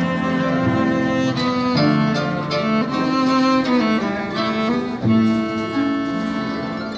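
Cello and harp playing a duet: long bowed cello notes over plucked harp chords, the sound dying away near the end.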